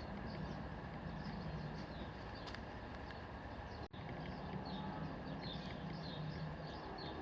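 Steady background ambience with quick, faint high chirps repeating several times a second, cut by a momentary dropout about four seconds in.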